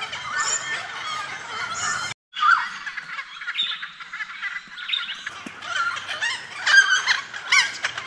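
A flock of noisy friarbirds calling over one another in a dense, overlapping chorus, absolute chaos. The sound drops out for a moment about two seconds in, and a few louder calls stand out near the end.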